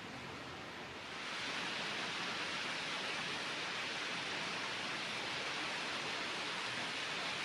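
Steady rush of hot-spring water pouring into a bath, which gets louder about a second in and then holds even.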